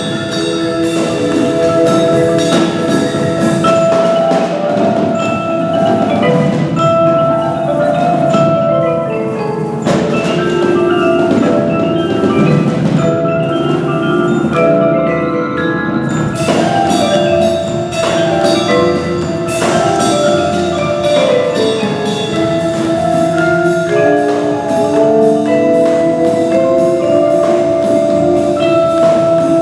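Student percussion ensemble playing a piece: a dense stream of struck notes with ringing, sustained pitches.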